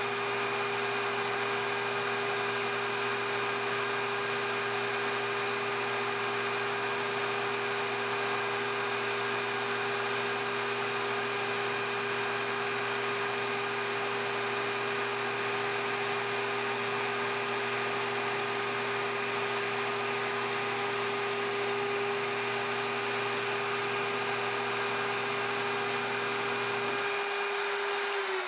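Cue lathe and its live-tooling spindle running steadily while boring the cue's joint end, a constant hum and whine over a hiss. Near the end a lower hum cuts off and the pitch starts to fall as the machine spins down.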